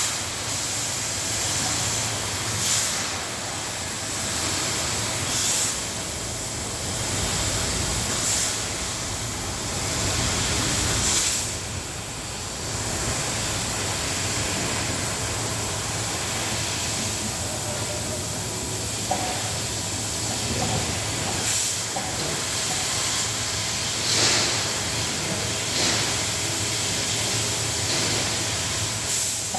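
CNC cutting machine running: a steady hiss over a low hum, swelling briefly every few seconds.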